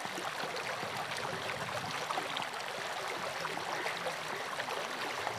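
A fast-flowing river running over a shallow bed: a steady rush of water.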